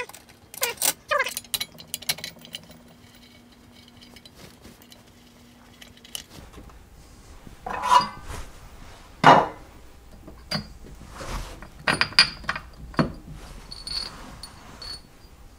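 Metal machine parts and a hand tool clinking and knocking as a part is unbolted and lifted off a Taig mill's head: a few sharp clicks at the start, then a string of knocks and clinks in the second half.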